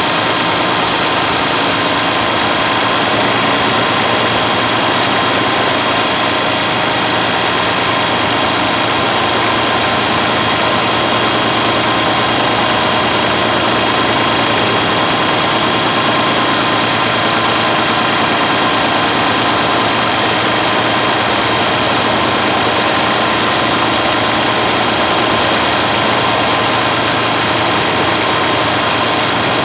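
Helicopter on pontoon floats running steadily: a continuous engine and rotor sound with a high whine that holds one pitch throughout.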